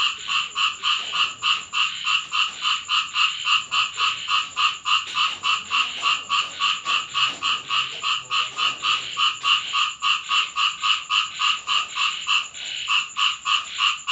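Frogs croaking in a fast, even rhythm of about four calls a second, each call with a higher and a lower part.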